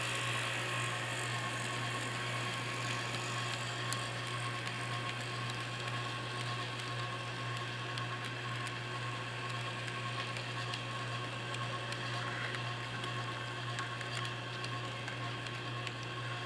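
N scale model train running past on its track: the steady whir of the locomotive's small electric motor and gearing, with light clicking from the wheels on the rails, over a steady low hum.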